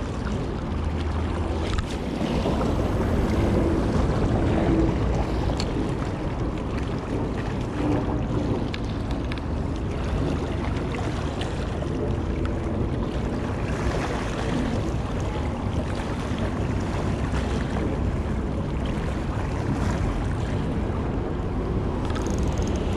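Wind on the microphone with water washing against shoreline rocks: a steady, even noise, heaviest in the low range.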